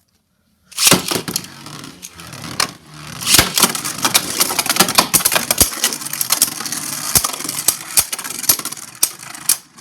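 Two Hasbro Beyblade Burst spinning tops, SpearDullahan and SuperHyperion, spinning and clashing in a plastic stadium, starting about a second in. A steady rattling whir is broken by many sharp hits as the tops strike each other.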